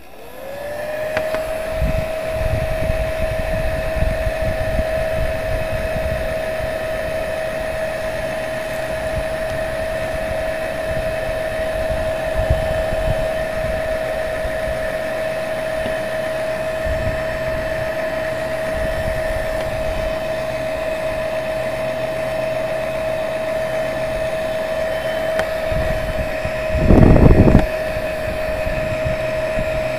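Electric heat gun switched on, its fan motor spinning up within the first second to a steady whine over a rush of hot air, heating the plastic lid to soften it. Near the end comes a brief loud rumble.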